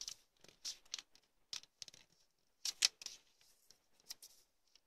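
A square of origami paper being folded by hand: short, scattered rustles and scrapes as fingers slide over the sheet and press a crease flat, the loudest pair about three seconds in.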